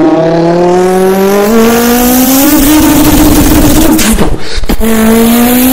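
Recorded race-car engine sound, revving with its pitch climbing steadily, breaking off briefly about four seconds in and then rising again.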